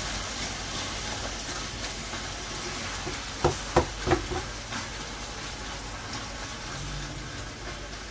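Steady hissing and sizzling of sugar syrup cooking on the stove, caramelised sugar with water just added. A few short knocks about three and a half to four seconds in.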